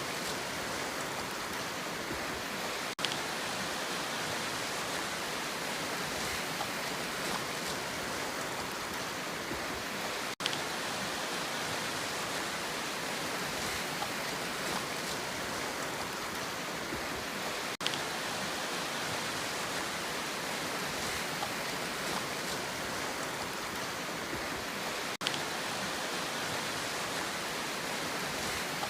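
Steady, even rushing sound of sea water with no rise and fall of separate waves, broken four times by a very brief gap, about every seven and a half seconds.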